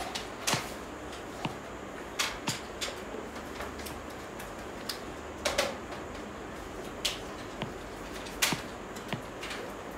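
Irregular light taps and clicks, about ten of them, over a steady room hiss, with the sharpest about half a second, five and a half and eight and a half seconds in.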